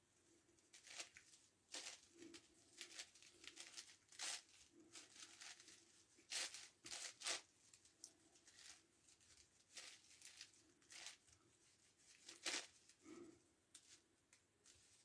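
Faint, irregular plastic clicking and scraping of a 9x9x9 Rubik's Cube's layers being turned by hand, in quick uneven bursts.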